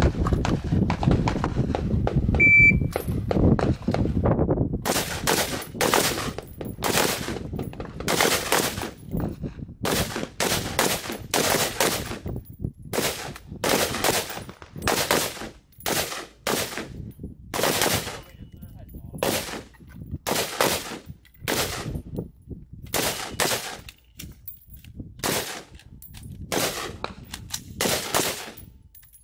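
AR-style rifles firing single shots at an unhurried, uneven pace, one to two a second, about thirty shots in all from around five seconds in. The first few seconds hold a low rumbling noise before the shooting starts.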